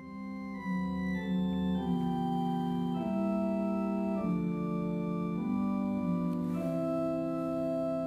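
Organ playing the opening of a hymn tune: held chords that change about once a second, swelling up from silence at the start.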